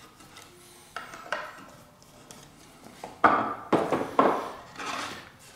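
Hand tools being handled and set down on a wooden workbench: two light clicks, then four louder knocks and clatters a little after the middle.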